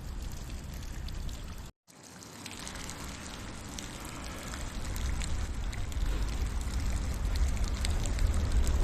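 Rain falling steadily, with scattered sharp ticks. The sound cuts out for a moment about two seconds in, then resumes and grows steadily louder.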